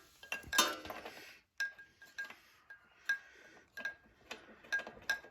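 A series of sharp metallic clicks, each with a short high ringing ping, about two a second, after a second of handling noise at the start.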